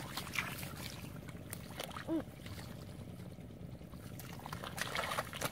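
Shallow muddy water splashing and sloshing as a stick pokes at a snake lying in it, with a louder splash near the end. A person gives one short call about two seconds in.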